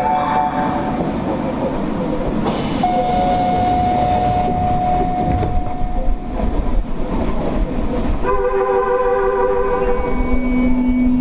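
Inside a Kita-Osaka Kyuko 9000 series subway car behind the driver's cab: a steady hiss of air-conditioning and train noise. A single steady tone sounds from about three to six seconds in, a chord of several tones for about two seconds near eight seconds in, and a low steady tone starts about ten seconds in.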